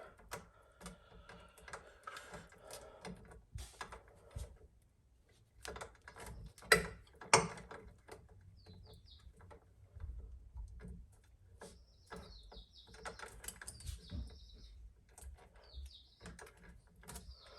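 Scattered clicks and light taps of hands working an electrical outlet and its wires in the wall box, with two sharper clicks about seven seconds in. Faint high chirping comes and goes in the second half.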